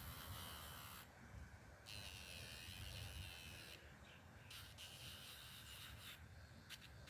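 Electric pet nail grinder sanding a dog's nails in three short bursts of faint high hiss, each a second or two long, with brief pauses between.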